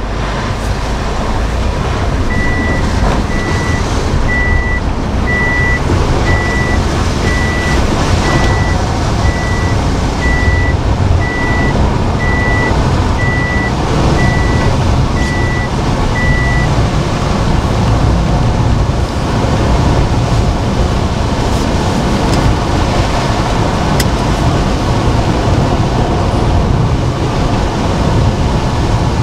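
Steady road and wind noise inside a car driving on a wet, slushy highway, with rain striking the windshield. A high electronic beep repeats about once a second through the first half.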